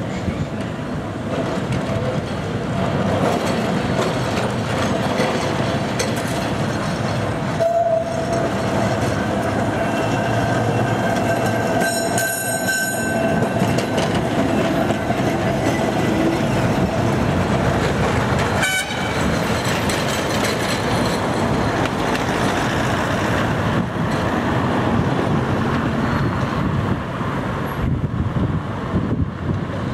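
Blackpool Balloon double-decker tram running past on street track: a steady rumble of wheels and motors with a held whine through the first half, and a brief sharp sound a little past halfway.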